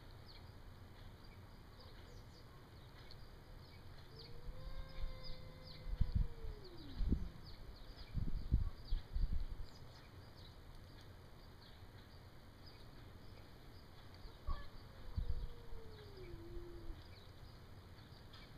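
Indoor cat giving two long, drawn-out yowls, a territorial warning at a strange cat outside the glass door. The first, about four seconds in, holds steady for a few seconds and then drops in pitch; the second, near the middle-end, slides downward. Low rumbling comes between them.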